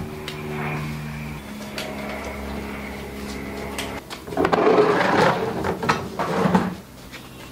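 Plastic oil drain pan and creeper slid and scraped over cardboard on asphalt, in a few rough scraping bursts in the second half. Before that there is a steady low hum, and it opens with a sharp click.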